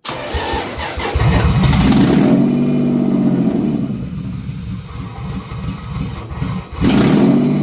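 Toyota 2JZ-GE inline-six cranking for about a second and catching, then flaring up in revs and falling back to a rough, hunting run; it nearly dies about six and a half seconds in and flares up again. The uneven running comes from vacuum leaks and the drive-by-wire throttle not being hooked up, as the owner sees it.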